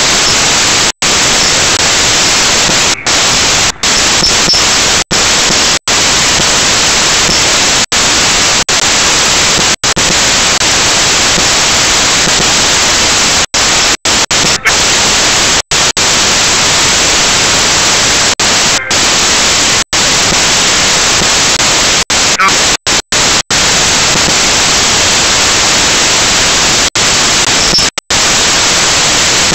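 Loud, steady static hiss from a cheap mini camera's own audio recording, with no other sound heard through it. The hiss cuts out to silence for split seconds many times, roughly every one to two seconds.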